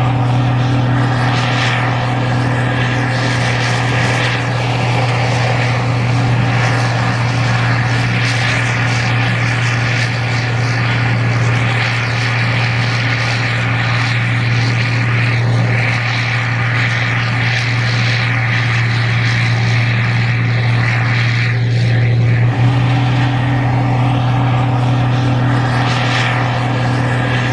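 Gleaner R52 combine harvesting corn: its diesel engine and threshing machinery give a steady, loud drone with a constant low hum.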